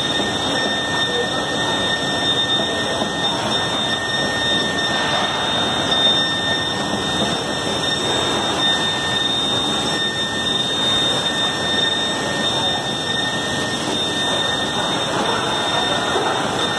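Steady machinery noise from an automated robotic welding line for car chassis, with a constant high whine running through it.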